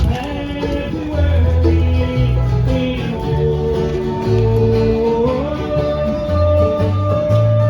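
Bluegrass-style country music with plucked banjo and guitar over a walking bass line.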